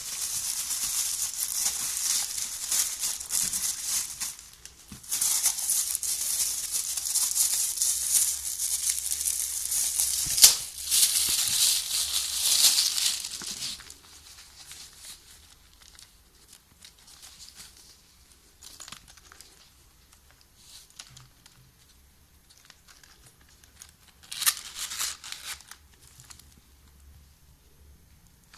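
Crinkling, rustling handling noise, as of something being crumpled or handled: dense for about four seconds, a brief pause, then again until about halfway, with a sharp click partway through. After that only faint scattered rustles, and one more short burst of crinkling near the end.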